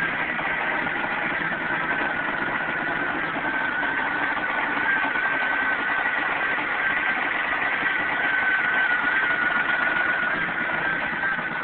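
1994 Chevy Cavalier's 2.2-litre four-cylinder engine idling with a misfire on two cylinders, caused by damp spark plug wires arcing. A steady high whine runs over the engine sound.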